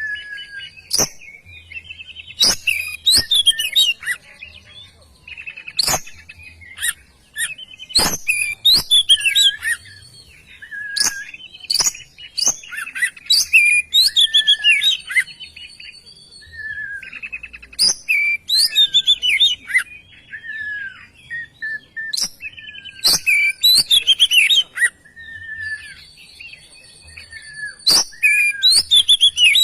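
Oriental magpie-robin (kacer) singing continuously and energetically: a rapid, varied stream of whistles, glides and trills, broken by many sharp click-like notes.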